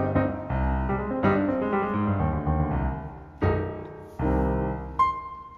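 Background piano music: a melody of struck notes, ending on one high note about five seconds in that rings on as the music fades.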